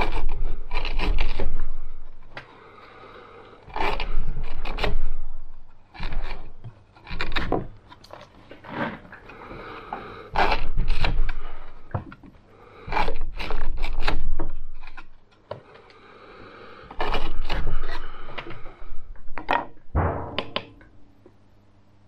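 A yellow-handled Victorinox knife with a coarse 250-grit edge cutting through natural-fibre rope against a wooden board: a series of scraping slicing strokes, each lasting a second or so, with short pauses between them. Near the end there is a sharper knock, as of the knife being set down on the board.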